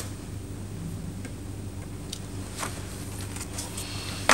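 Steady low electrical hum on the soundtrack, with a few faint scattered clicks and one sharper click near the end.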